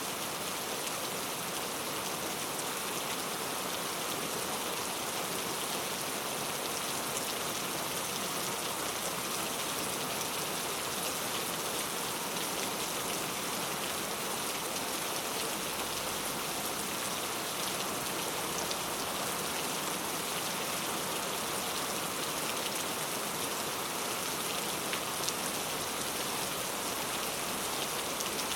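Steady rainfall, many fine drops pattering on surfaces with an even hiss.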